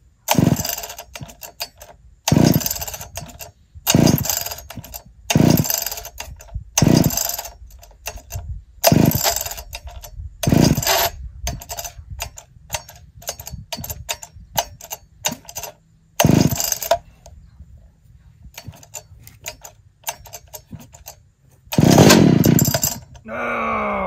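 Two-stroke Pioneer P60 chainsaw being pull-started by its recoil starter: about ten hard, rasping pulls on the cord a second or two apart, with fainter clicks between them, without the engine running. Near the end a longer pull is followed by the engine firing briefly, its pitch falling fast as it dies.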